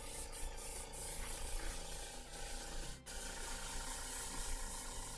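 Airbrush hissing steadily as it sprays paint, with a brief break about three seconds in when the trigger is let off.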